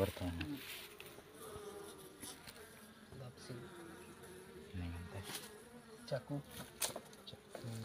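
Honeybees buzzing around an opened hive: a steady, wavering hum. A couple of sharp clicks come about five and seven seconds in.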